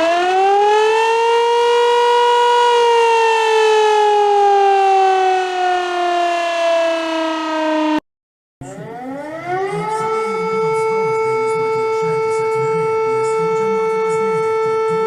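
Two civil defense sirens played one after the other. The first winds up, peaks and slowly winds down, then cuts off abruptly about eight seconds in. After a brief silence the second winds up and holds a steady tone.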